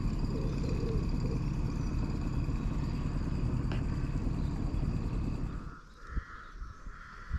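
A boat motor running with a low rumble and a steady whine. The rumble drops away about six seconds in, leaving a fainter whine.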